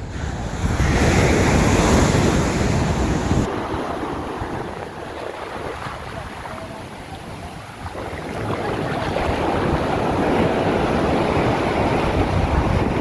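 Sea surf breaking and washing up the beach, swelling loudest in the first few seconds and again in the second half. Wind buffets the microphone with a low rumble that cuts off about three and a half seconds in.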